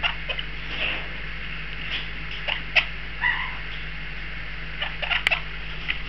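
Baby monk parakeet making a few short squeaks and clicks, with one brief squeaky call a little past three seconds, over a steady low hum.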